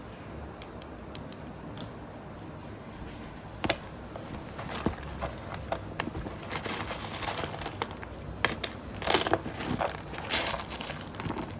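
Slate pencils crunching and crackling in scattered sharp cracks, with one loud crack about four seconds in and a busier burst of crackling near the end.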